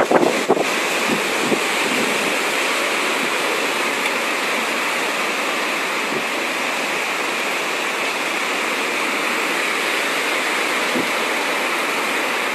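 Steady rushing noise of typhoon wind and water, with a few sharp knocks in the first half second.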